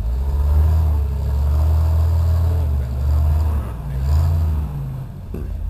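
Rock-crawling buggy's engine revving hard under load as it climbs a rocky ledge, in one long surge and a second shorter one, easing off near the end.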